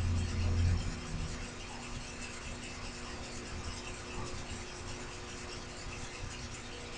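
Small benchtop milling machine running steadily, its motor humming on a few fixed tones, while the cutter scrapes and ticks faintly through carbon-fibre-reinforced plastic. A louder low rumble comes in the first second.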